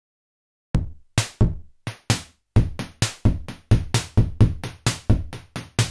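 A drum-machine beat starts about a second in after silence: regular punchy strikes with a deep thud and a bright crisp top, about four a second.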